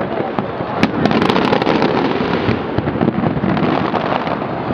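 Fireworks bursting overhead with continuous crackling, and a dense run of sharp cracks about a second in.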